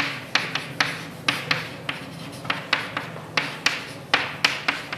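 Handwriting on a board: a steady run of sharp taps and short scratches, about three a second, as pen strokes meet the surface.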